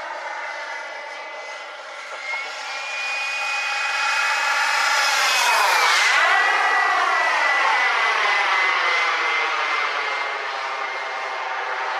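Exocet radio-controlled model jet's small gas turbine whining steadily as the jet flies past overhead, growing louder toward the middle and then fading. As it passes, about halfway through, the whine drops slightly in pitch.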